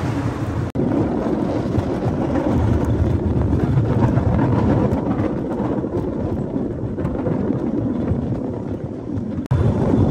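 A lory (Cambodian bamboo train) running steadily along its track: a continuous rumble of the moving car on the rails, dropping out for an instant twice.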